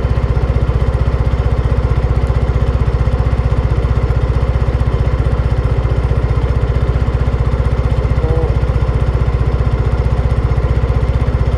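Motor scooter engine running steadily under way, an even low pulsing rumble that does not let up.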